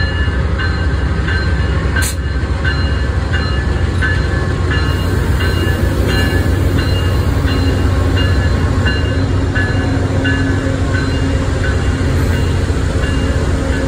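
Amtrak GE Genesis diesel locomotives moving slowly past, with a deep steady engine rumble, while a bell rings evenly at about one and a half strikes a second. A single sharp click about two seconds in, and a steady engine tone rising out of the rumble in the second half.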